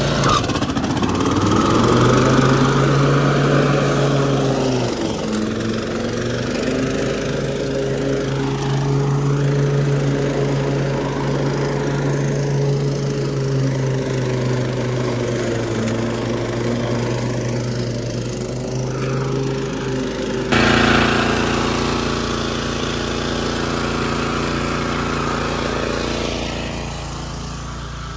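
Walk-behind lawn mower engine running steadily while mowing grass, its pitch wavering slightly as the load changes.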